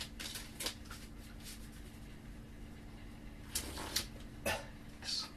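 Playing cards and their plastic packaging being handled: scattered short clicks and rustles, some spaced out, over a faint steady hum.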